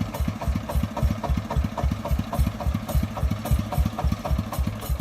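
Single-cylinder diesel engine of a công nông three-wheeler idling, with an even, rapid beat of about five pulses a second.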